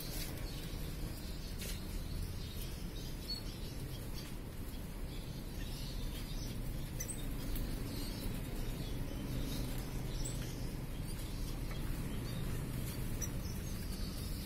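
Small aviary finches (munias) giving scattered short, faint, high chirps over a steady low background rumble.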